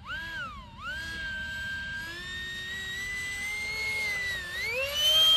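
Electric ducted fan of an RC F-14 Tomcat model jet whining in flight. The pitch swoops down and up twice, holds fairly steady, then climbs steeply near the end as the fan winds out.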